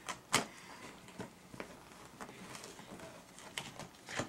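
Scattered light clicks and rustles from a cardboard box of Cheez-It crackers being handled, crackers shifting inside. The loudest click comes about half a second in.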